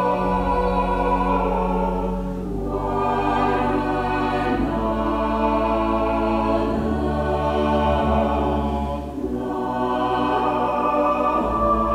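Church choir of girls' voices singing a slow piece in long held phrases, over organ accompaniment with low sustained bass notes.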